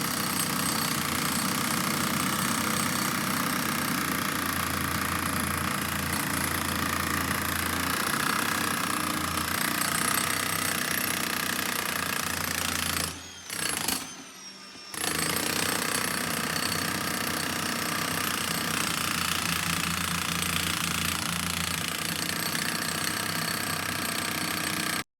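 Jackhammer breaking up a concrete slab, hammering steadily, with two short pauses about halfway through.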